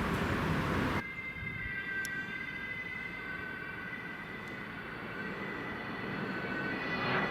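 Several emergency-vehicle sirens sounding together at a distance, their tones held and slowly sliding, growing louder near the end. It opens with about a second of noisy rumble that cuts off abruptly.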